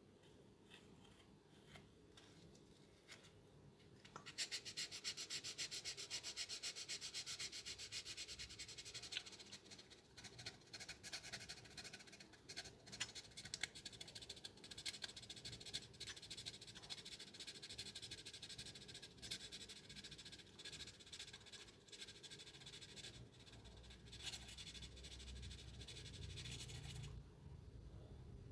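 Quick, even rubbing strokes of something abrasive against a small hard object, starting about four seconds in and going on steadily. A low rumble joins near the end.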